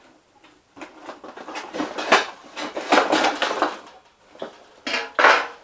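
Metal stove accessories, the BioLite Basecamp's log stand and ash tray, clinking and rattling as they are handled out of the box, with louder clanks about two seconds in and near the end.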